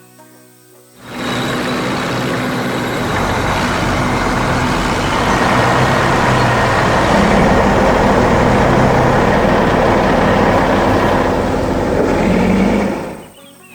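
Heavy truck engine running steadily and loudly, starting about a second in and cutting off abruptly near the end.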